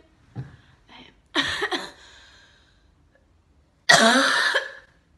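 A young woman coughing: a couple of small throat sounds, then two sharp coughs close together about a second and a half in, and one longer, louder cough near the end.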